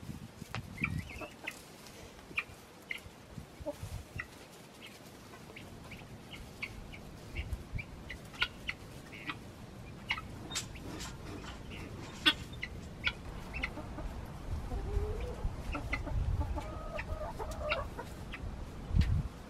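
Backyard hens clucking, with scattered short ticks and rustles around them. The clucking becomes more noticeable near the end.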